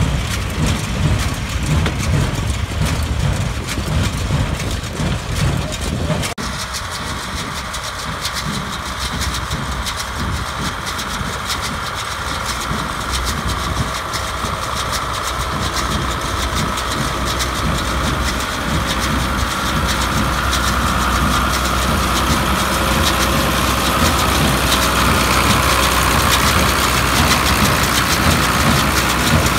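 MTZ Belarus tractor engine running steadily while towing a Kirgizstan small square hay baler that is working along the windrow. The sound changes abruptly about six seconds in and grows gradually louder toward the end as the rig comes closer.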